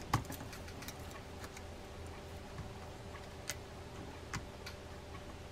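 Faint, scattered small metallic clicks as micro pliers work a tiny side plate spring onto its post on a baitcasting reel's metal side plate, over a faint steady hum.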